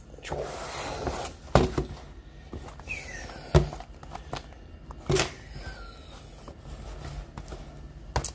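Cardboard hobby boxes of trading cards being set down and shifted on a wooden tabletop: a few sharp knocks a second or two apart.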